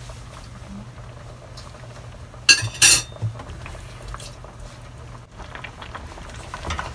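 Two sharp clinks of kitchenware against a steel cooking pot about two and a half seconds in, over a steady low hum. Near the end a wooden spatula stirs crabs in the pot with light knocks.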